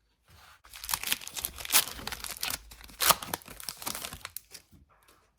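Foil wrapper of an Upper Deck hockey card pack being torn open and crinkled: a dense crackle for about four seconds, with two sharper rips partway through.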